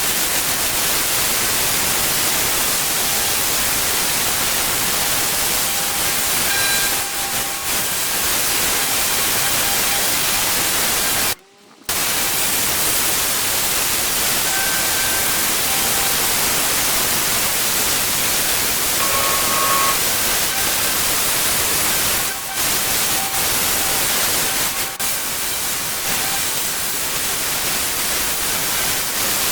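Pressure washer jet spraying: a loud, steady hiss that stops for a moment about eleven seconds in, then resumes.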